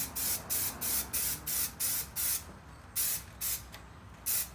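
Aerosol can of spray adhesive hissing in about ten short bursts, with a pause a little past halfway, as glue is sprayed onto the back of a paper cut-out.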